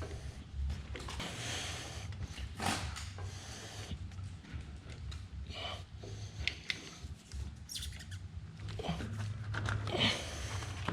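Hydraulic filter being worked loose and handled by hand: scattered clicks, scrapes and short high squeaks.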